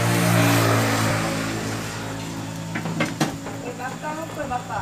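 A vehicle's engine hum with road noise, loudest at first and fading away as it passes. A sharp metal clank comes about three seconds in, and faint voices near the end.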